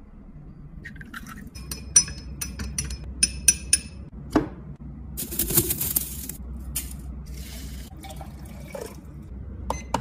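Glassware clinking at a small glass measuring jug of water and bamboo charcoal powder: a run of sharp, ringing clinks. About halfway through comes a short dry rustle of loose oolong tea leaves being handled, then a few light clicks near the end.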